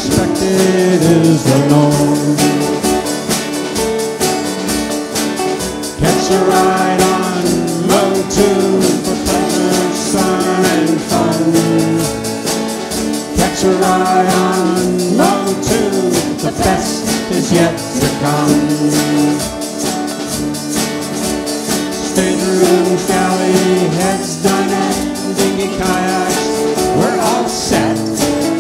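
A band playing and singing: acoustic guitars strummed over a drum kit with cymbals, and voices singing.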